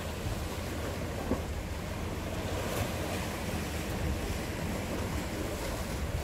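Sea surf washing against a rocky shore, with wind rumbling on the microphone.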